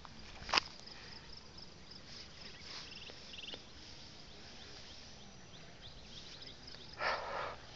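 Natural ambience of birds singing and insects chirping, with a steady row of quick high-pitched pulses and short trills. A sharp click comes about half a second in, and a brief rustling burst near the end.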